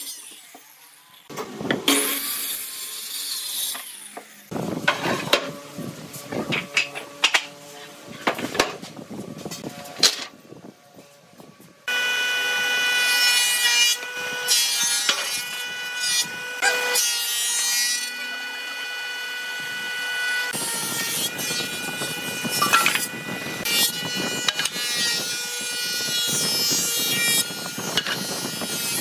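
Handheld Dekton circular saw cutting a board in short runs, with pauses between. From about twelve seconds in, a thickness planer's motor runs with a steady whine, and from about twenty seconds in boards are fed through it and planed.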